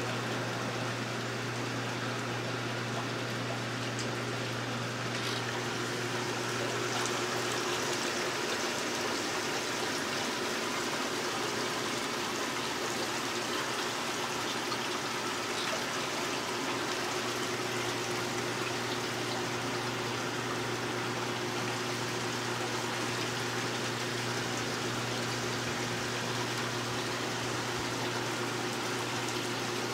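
Water splashing and trickling steadily from a Dynasty hot tub's waterfall, over the low hum of the spa's pump.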